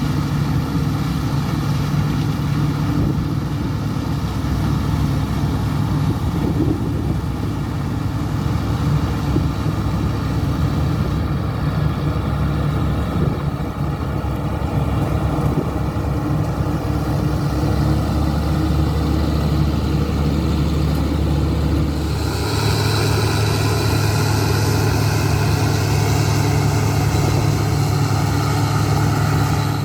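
Diesel engines of large harvest machinery running steadily. About two-thirds of the way through the sound changes to a brighter engine note with more hiss and a high whine.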